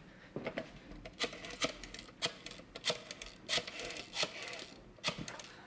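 Irregular clicks and knocks as a person walks to a desk and a desk telephone is picked up and dialled, the knocks coming closer together in the second half.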